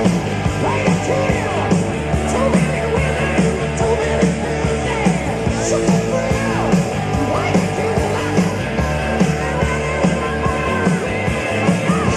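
Loud rock music with a singing voice, played over a stage sound system.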